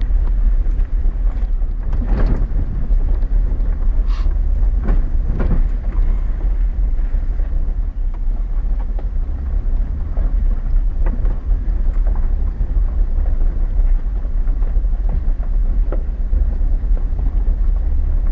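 Chevy Silverado 4x4 pickup heard from inside the cab, crawling over a rough rocky dirt road: a steady low rumble of engine and tyres, broken by scattered knocks and rattles as the truck rolls over rocks.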